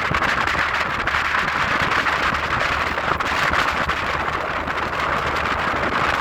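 Steady rain falling, an even, dense hiss that holds level throughout.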